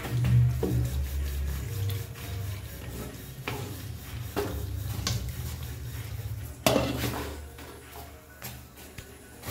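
Wooden spatula stirring a thick, simmering chicken curry in a metal frying pan, knocking and scraping against the pan several times, the loudest knock about two-thirds of the way through, over a low steady rumble.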